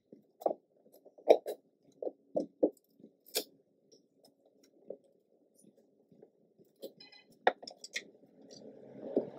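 Irregular light clicks and knocks of hands handling plastic trim and parts in an open car trunk, about a dozen, with a soft rustle building near the end.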